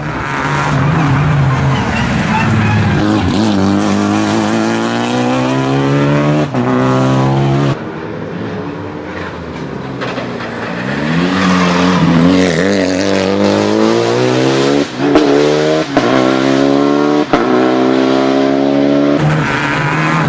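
Renault Clio Rally5 rally car's turbocharged 1.3-litre four-cylinder engine revving hard. Its pitch climbs repeatedly and is cut by brief dips at the gear changes. It eases off about a third of the way in and then pulls hard again.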